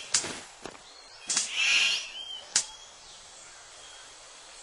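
Male superb bird of paradise in display, making sharp clicks and a short rasping hiss about a second and a half in. The sound then fades to quiet forest background.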